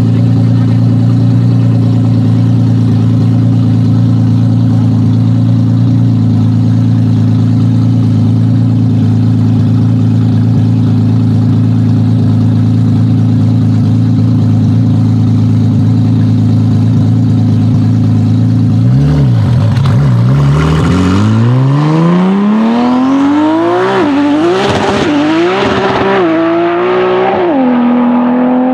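Nissan GT-R engine holding a steady low drone. About two-thirds of the way in it revs up hard, its pitch climbing with several short drops before settling on a higher note near the end.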